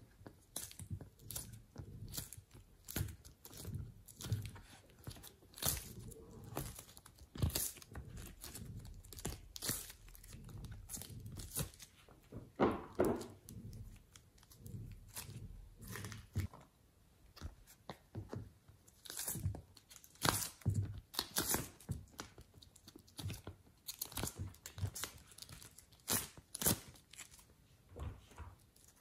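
Slime being kneaded and squished by hand, giving irregular sharp clicking crackles, with one longer, lower squelch about halfway through.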